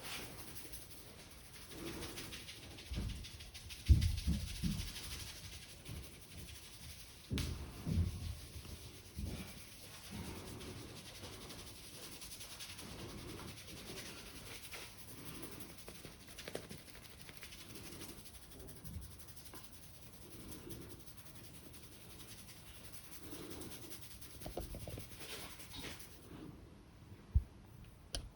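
Hands working over a customer's oiled scalp and neck in a head massage: rubbing and kneading, with low thumps from patting and pressing. The loudest thumps come about four and eight seconds in, and there is a single sharp knock near the end.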